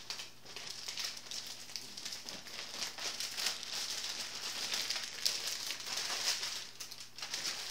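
Clear plastic bag crinkling as it is pulled up and off a cardboard box, a steady run of small crackles.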